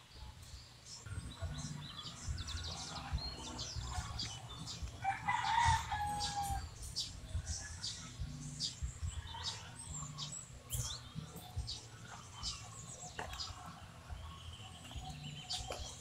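A rooster crows once, about five seconds in, the loudest sound, with small birds chirping throughout. Under it come soft irregular scrapes and knocks of a hand trowel digging soil from a plastic planter.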